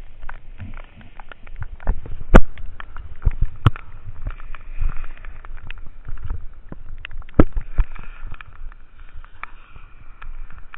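Skis moving over wet, slushy snow in the rain, heard close on a worn camera: a low rumble broken by irregular sharp knocks and ticks. The loudest knocks come about two and a half seconds in and again about seven and a half seconds in.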